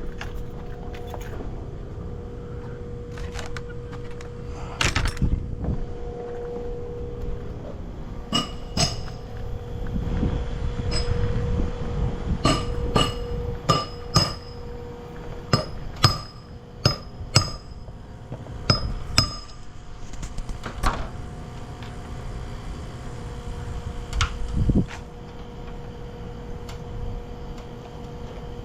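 Hammer driving nails, sharp ringing metallic strikes in irregular runs, with a quick series of about a dozen blows in the middle.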